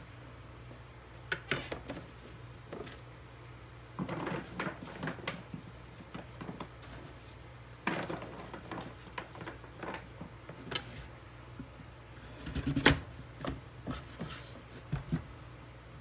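Kitchen knife cutting butternut squash on a plastic cutting board, with the cubes set down on a metal baking sheet: scattered knocks and clicks in short clusters, the loudest about three-quarters of the way through, over a steady low hum.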